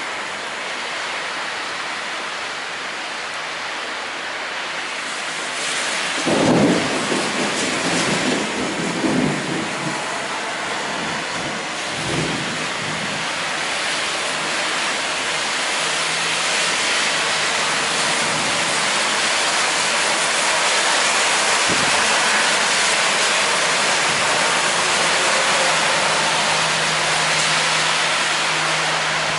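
Heavy rain pouring on streets and pavement in a steady hiss, with a roll of thunder about six seconds in that rumbles on for several seconds and a shorter rumble a little after. The downpour grows louder in the second half.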